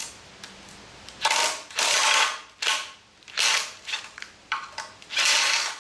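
Hand ratchet wrench clicking in several short bursts as it is worked back and forth on the engine's fasteners.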